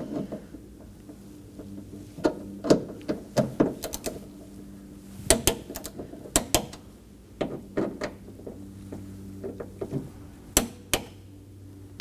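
Torque wrench on T30 screws in a car door's lock actuator, tightening them to 49 inch-pounds: sharp metallic clicks and knocks in irregular clusters, over a steady low hum.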